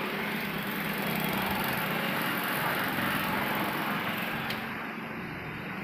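Air compressor running steadily, its motor humming under the steady hiss of air being pumped through the valve into a water-ballasted tractor rear tyre. A single sharp click sounds about four and a half seconds in.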